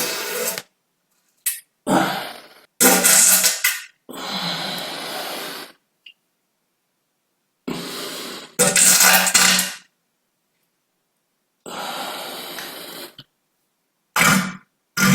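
A series of human farts: about seven separate bursts, some loud and some softer, each cut off by a silent gap. The loudest come about three seconds in and about nine seconds in.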